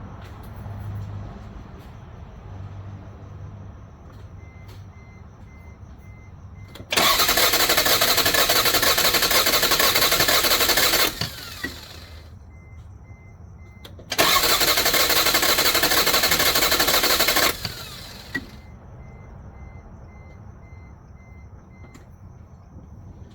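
1990 Toyota Camry V6 cranked on its starter twice, about four seconds and then about three seconds, without catching: the engine won't start, which the owner thinks may be a vacuum leak. Between the two tries a warning chime beeps steadily.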